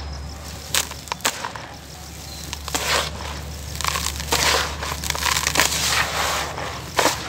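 Hands crumbling and scooping dry, gritty brown dirt with small lumps: a few sharp crunches as lumps break, and gritty hissing as handfuls of dusty soil pour back into the tub, busiest from about four to six and a half seconds in.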